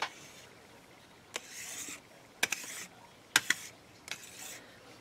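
A few light taps and short soft scrapes as a hand-held tool is set down and slid over a smooth tile work surface.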